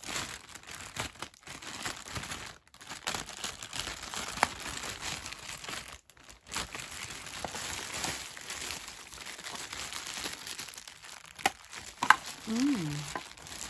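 Thin clear plastic packaging bag crinkling and crackling as it is handled and pulled open, with two short pauses.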